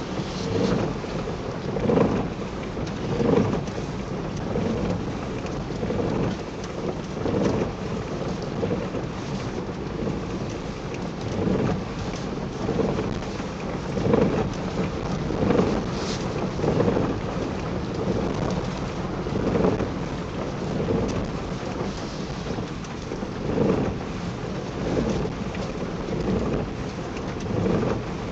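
Steady road and engine noise inside a moving car's cabin, with irregular soft swells about every one to two seconds.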